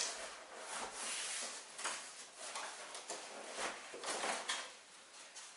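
Large flat-pack cardboard box being handled and tilted up off the floor: a sharp knock at the start, then several spells of cardboard rustling and scraping.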